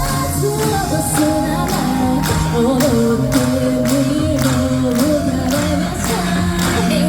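Upbeat J-pop idol song with female singing over a steady drum beat.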